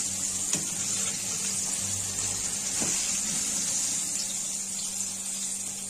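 Battered chicken deep-frying in hot oil in a wok: a steady, high sizzle. A wire skimmer knocks lightly against the pan twice, about half a second and nearly three seconds in, as the fried pieces are lifted out.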